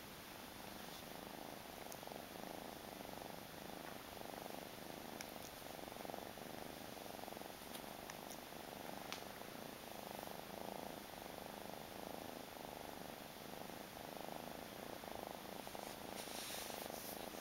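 Burmese kitten purring steadily as it is stroked and scratched under the chin: a continuous, rhythmic purr.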